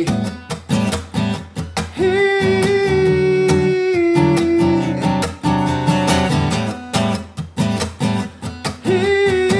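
Acoustic guitar strummed in a steady rhythm, with a man's voice singing long held notes over it, the first starting about two seconds in and another near the end.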